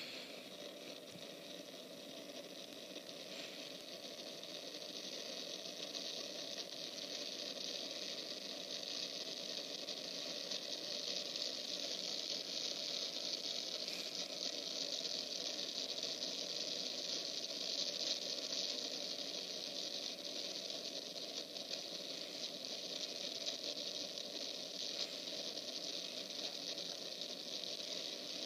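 Steady rushing hiss of strong wind, growing slowly louder over the first several seconds and then holding.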